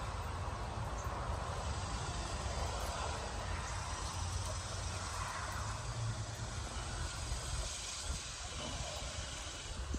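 Steady low rumble with a faint hiss of outdoor background noise; no distinct foreground sound.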